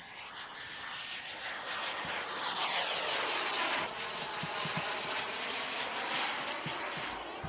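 Turbine engine of a radio-controlled model jet flying past, a rushing whine that swells to its loudest about three to four seconds in and then eases off.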